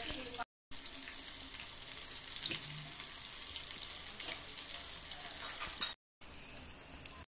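Chicken pieces deep-frying in hot oil in a kadai: a steady sizzle with scattered small crackles, broken twice by brief gaps. The bubbling is the sign that the chicken is still cooking; once it dies down, the chicken is done.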